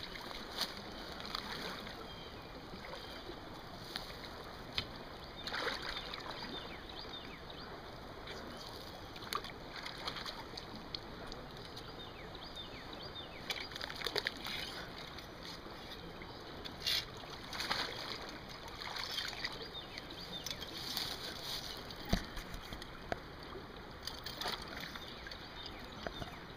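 Shallow creek water sloshing and splashing now and then as a person wades in rubber waders and works a trap stake in the water, with scattered short splashes and knocks over a steady wash of noise.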